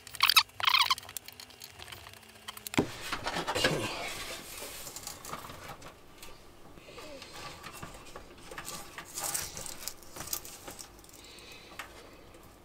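Scattered light clicks, taps and rustling from hands handling the opened steel case and parts of a Commodore 8050 disk drive as it is dismantled. Two short high-pitched sounds come in the first second, and there is a sharper click about three seconds in.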